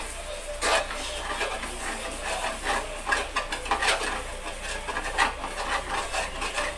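Metal spatula stirring and scraping through taro leaves in coconut milk in a metal wok: irregular scraping strokes, a few of them sharper and louder.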